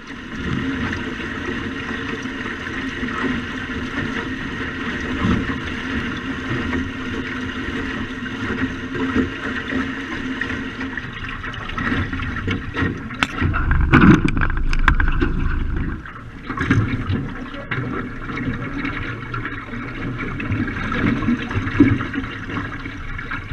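Water rushing and splashing along the hull of an aluminum Grumman canoe under sail in gusty wind, with wind buffeting the microphone. A stronger gust rumbles loudest about two-thirds of the way through.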